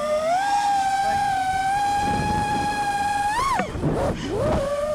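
FPV quadcopter motors and propellers whining at a steady high pitch. About three and a half seconds in, the pitch jumps up and then sweeps steeply down amid a rush of air as the throttle is punched and cut for a dive. The whine picks back up near the end.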